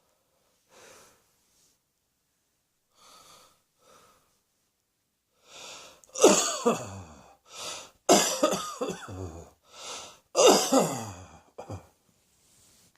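A person coughing: faint breaths at first, then about six seconds in, three loud coughing bouts with short breaths between them, the voice falling in pitch through each bout.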